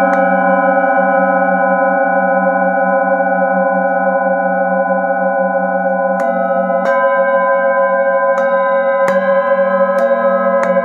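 Several singing bowls ringing together in long, overlapping tones with a slow wavering in the low note, struck with a padded mallet. A strike comes near the start, then about five more strikes in the last five seconds add fresh tones over the ringing.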